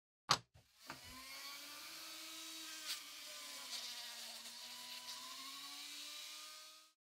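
Handheld rotary tool running a polishing wheel against a small slotted metal knife-guard plate: a steady high motor whine with a polishing hiss, the pitch wavering slightly under load. It starts about a second in after a couple of clicks and cuts off suddenly near the end.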